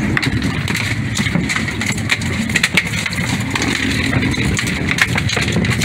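Boat engine running steadily, with irregular slaps and knocks on the deck as a gaffed Pacific halibut thrashes.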